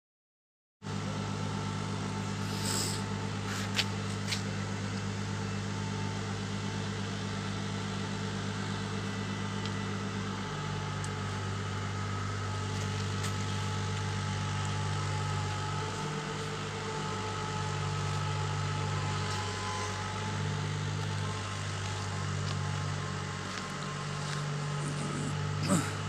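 Steady machine hum with a deep, even drone that shifts slightly in pitch now and then, starting abruptly about a second in, with a couple of sharp clicks a few seconds in and one near the end.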